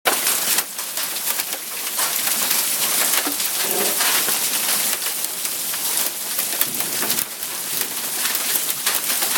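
Hailstones pounding parked cars: a dense, continuous clatter of ice striking metal body panels and glass, heavy enough to crack a windshield and dent a hood.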